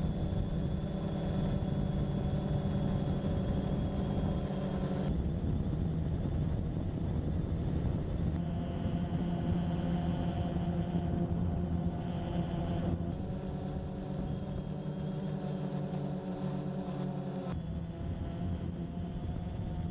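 Steady buzz of a multirotor drone's electric motors and propellers, its tone changing abruptly a few times.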